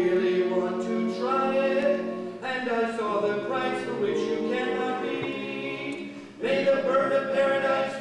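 A vocal quartet singing a cappella in close harmony: held chords that change pitch, with short breaks about two and a half and six seconds in.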